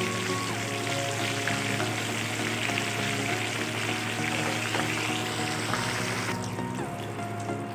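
Corn sticks in a corn-flour coating deep-frying in hot oil: a steady sizzle full of small crackles. The high hiss cuts off suddenly about six seconds in.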